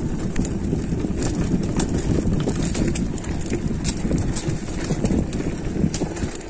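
Mountain bike clattering over a rough dirt trail: irregular rattles and knocks from the frame and wheels over a steady low rumble.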